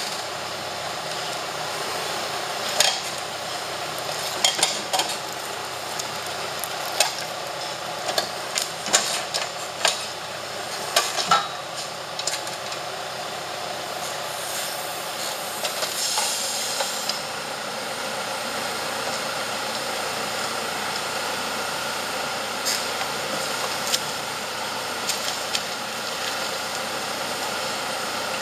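Tractor engine running steadily as a forwarder's hydraulic grapple crane loads logs, with sharp knocks of logs striking logs and the bunk, most of them in the first half. A brief hiss comes about halfway through.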